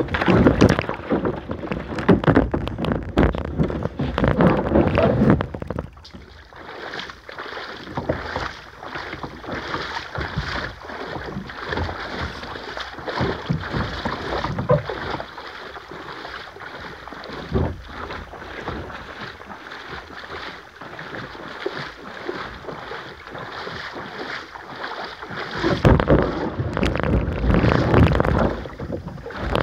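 Water splashing and lapping around a kayak moving along a river. Wind buffets the microphone in the first few seconds and again near the end.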